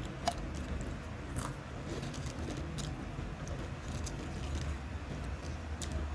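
Crunchy potato crisps being chewed and handled, heard as scattered short, sharp crunches and clicks.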